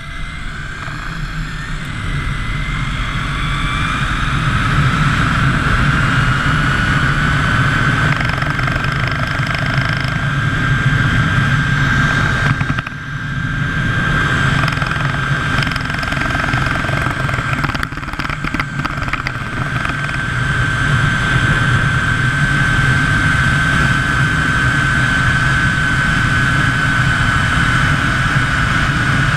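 Zipline trolley pulleys running along the steel cable at speed. The whine rises in pitch over the first several seconds as the ride speeds up, then holds steady. Underneath is a loud, constant rush of wind on the microphone.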